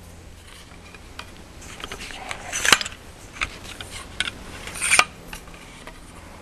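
Metal camera tripod legs being pulled out and set, the tubes sliding and clinking, with several small clicks and two louder clacks, one near the middle and one about two seconds later.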